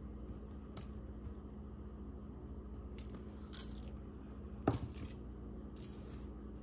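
Small metal costume jewelry pieces clinking against each other as they are picked through and set down: a handful of separate light clicks, the loudest about three and a half and nearly five seconds in.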